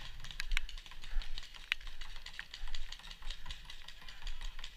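Paintball markers firing nearby, a scattered series of sharp pops at irregular intervals.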